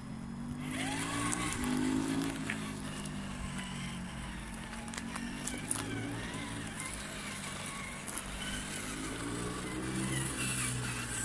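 Traxxas TRX-4 Ford Bronco RC crawler's electric motor and gearbox whining as it drives over dry forest ground. The pitch rises about a second in, then falls, and rises again near the end. Scattered clicks and crunches come from the tyres on the twigs and cones.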